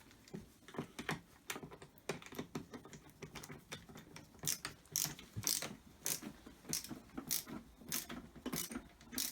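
Hand screwdriver driving a screw to mount the hose holder on a pressure washer, heard as a run of uneven clicks, a couple each second.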